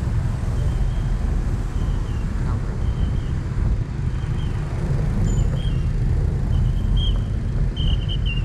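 Steady low rumble of a moving vehicle, with wind buffeting the microphone. A short high chirp repeats roughly once a second.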